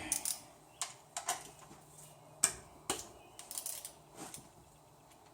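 Irregular metallic clicks and clinks of hand tools: a ratchet with a 15 mm socket being worked on a car's oil-pan drain plug, the sharpest knocks about two and a half and three seconds in.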